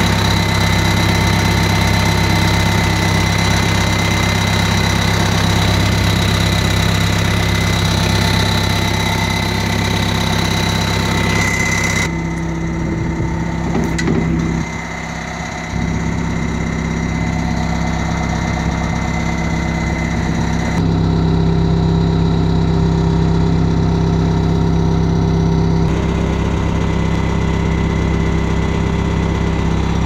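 New Holland C175 compact track loader's diesel engine idling steadily, with a thin high whine over the low running note. About twelve seconds in, the sound turns duller and loses its high whine, with a brief drop in level a few seconds later.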